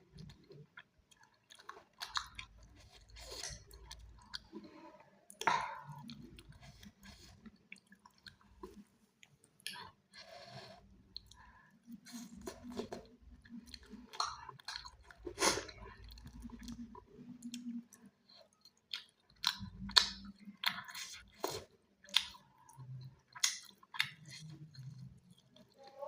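A person chewing chicken, with irregular mouth smacks and clicks from start to finish.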